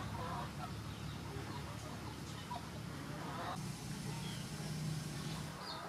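Outdoor yard ambience: a steady low hum with short bird calls now and then.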